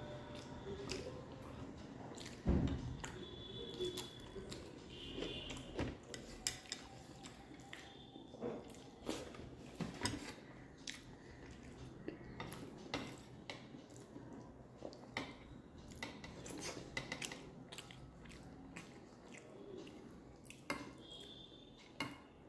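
Close-up sounds of eating by hand: wet squishing of food between the fingers, chewing and small mouth clicks, and light clinks and scrapes of a steel plate. There is a louder dull knock about two and a half seconds in.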